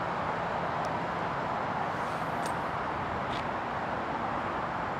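Steady vehicle rumble and hiss, with a few faint, short high chirps about one, two and a half and three and a half seconds in.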